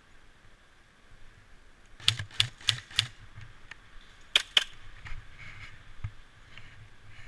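Airsoft gun firing single shots: four sharp cracks at about three a second, then two more in quick succession.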